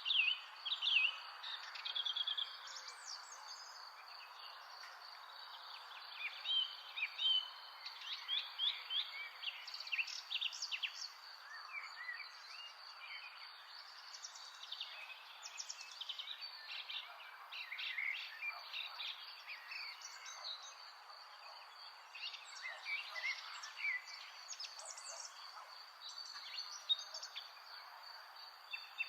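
Several birds chirping and singing in short, overlapping calls and trills, over a steady high-pitched whine and a soft, even background hiss.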